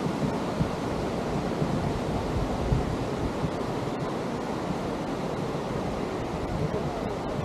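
Atlantic surf washing onto a sandy beach, a steady rushing noise, with an uneven low rumble of wind on the microphone.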